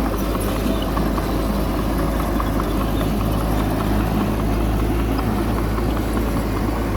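Bulldozer's diesel engine running steadily under a low, even drone, with scattered light clicks and clanks over it.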